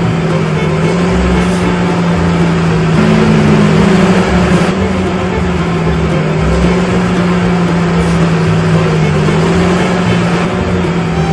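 Small DC toy motor with a yellow plastic gearbox whirring steadily as it turns a soda-can mixer drum. Its pitch rises briefly about three seconds in, then settles back.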